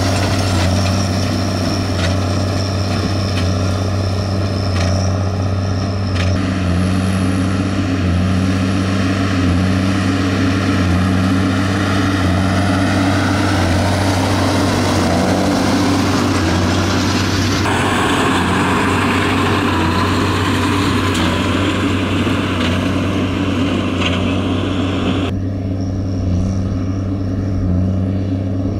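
Fendt 930 Vario TMS tractor's six-cylinder diesel engine running steadily under load, pulling a Claas Quadrant 5300 FC large square baler that is working behind it.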